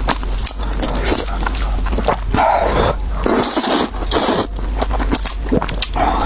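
Close-miked noodle eating: wet chewing, lip-smacking clicks and bursts of slurping, the loudest slurps about two and a half and three and a half seconds in.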